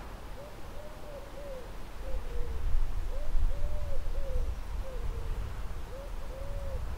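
A dove or pigeon cooing a repeated phrase of soft, low notes: a short note, a long rising-and-falling coo, then shorter falling notes, over and over. A low rumble runs underneath and gets louder about two seconds in.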